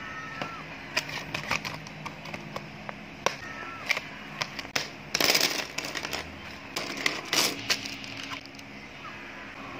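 Ballpoint pens and their clear plastic wrapping being handled: scattered light clicks of pen against pen and crinkling of the plastic, with the loudest crinkles about five seconds in and again about seven seconds in.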